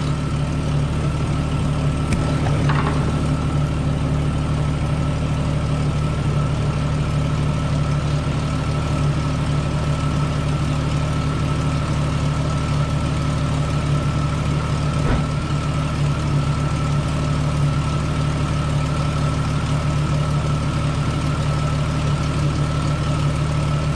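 A 1998 Jeep Cherokee XJ's engine idling steadily, with a light click about two and a half seconds in and another about fifteen seconds in.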